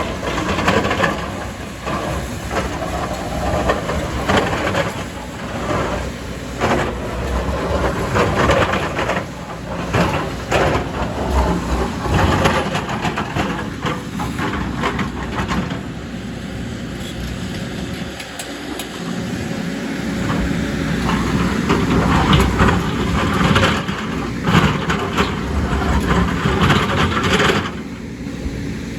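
JCB excavator at work: its diesel engine runs steadily under load while the bucket scrapes and knocks against rock and soil, in many short, irregular clatters.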